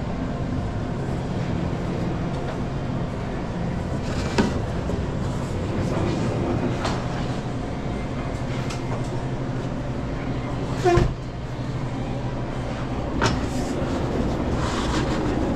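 A steady low mechanical hum of pizza-kitchen equipment, with a few sharp knocks and clatters of kitchen work, the loudest about eleven seconds in.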